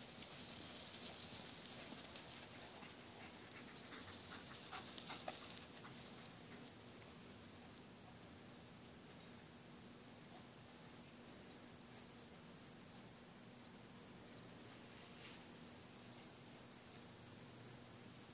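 Faint, steady insect chorus: a continuous high-pitched trill. A few soft clicks come through in the first five seconds or so.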